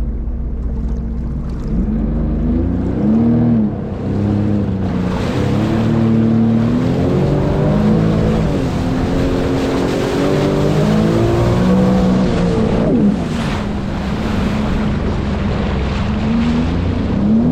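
Sea-Doo personal watercraft engine running on the water, its pitch rising and falling again and again as the throttle is eased on and off, then dropping back sharply about thirteen seconds in. Wind rumbles on the microphone in the first few seconds.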